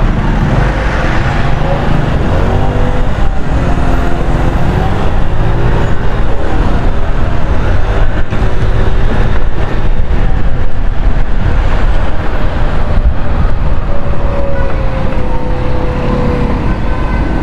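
Riding noise on a small 50cc scooter in city traffic: a heavy, steady low rumble of wind and road noise, with surrounding vehicle engines. An engine's pitch rises and falls a few times a few seconds in, and again near the end.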